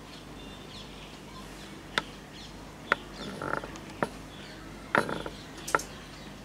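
Handling noise from a recording device being picked up and moved by hand: about five sharp knocks and clicks, spaced roughly a second apart, with a brief rubbing scrape between the second and third, over a steady low hum.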